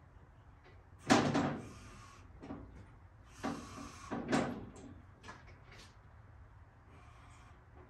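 Big Joe electric lift at work as its platform is raised: a loud clank about a second in, then further clunks, rattles and short spells of motor noise, with small clicks between.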